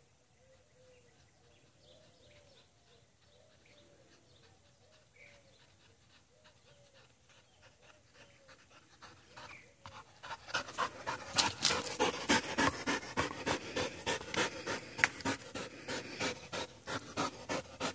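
Black Labrador retriever panting hard and fast, about three breaths a second, close by from about ten seconds in, winded from running after the ball.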